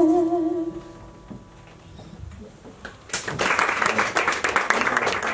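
A female singer's last held note with vibrato dies away, followed by a short hush. About three seconds in, the audience breaks into applause, which keeps going.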